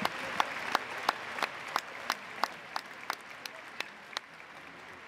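Crowd applauding, with one nearby person's claps standing out at about three a second. The applause dies down and the close claps stop near the end.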